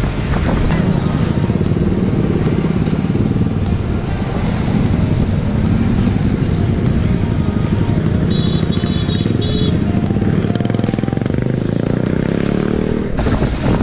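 Honda Forza 300 scooter's single-cylinder engine running under way through traffic, with road and traffic noise. Just past the middle come three short high beeps, and near the end the engine note climbs as it accelerates.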